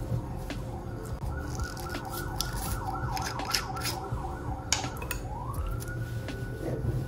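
An emergency vehicle siren wavers quickly, then rises into a long held wail about five seconds in. Over it come sharp clicks from a sparkling wine bottle's foil and wire cage being worked open.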